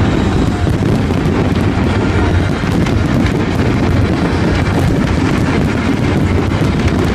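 Fireworks going off in a dense, continuous barrage: a steady rumble of booms with constant crackling over it.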